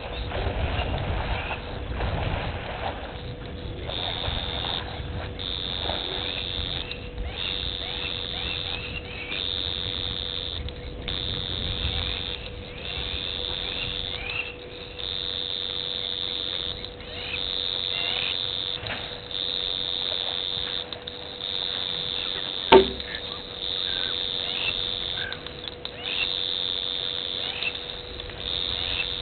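Elephant wading out of shallow water onto the bank, with low splashing and trampling in the first few seconds. Then a high-pitched chirring, typical of insects calling at a waterhole, pulses on and off in roughly one-second bursts over a faint steady electrical hum, with a single sharp click a little over 20 seconds in.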